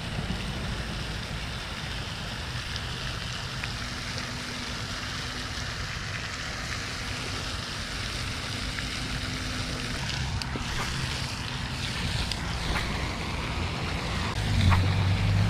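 Steady wash of wind and splashing water from a spray fountain in a pond, with a faint low hum underneath; a low rumble grows louder near the end.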